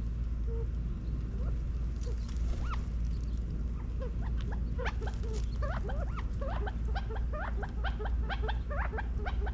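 A feeding flock of quail giving short, soft chirping calls: only a few at first, then a quick run of many chirps from about four seconds in. A steady low rumble sits underneath.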